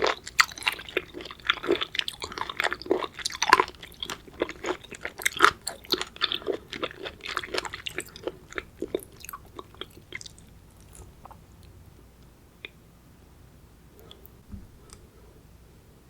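Close-miked chewing of raw seafood: crisp, crunchy bites and wet mouth sounds in quick succession, thinning out about ten seconds in to a few faint clicks.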